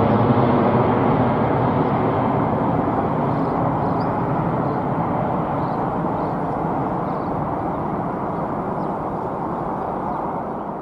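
Jet noise from a climbing Airbus A340-600's four Rolls-Royce Trent 556 turbofans: a steady low rush that slowly fades as the aircraft moves away.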